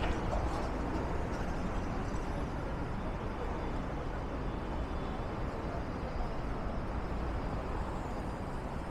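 Steady city street traffic noise, an even wash of passing vehicles with no single event standing out.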